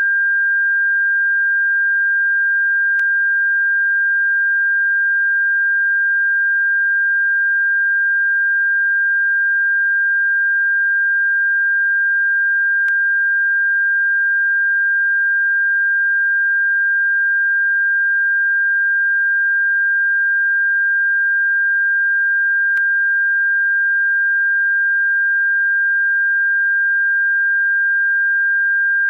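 Electronic pure tone for repelling birds: one high, steady pitch held unbroken at constant loudness, with a faint click three times, about ten seconds apart.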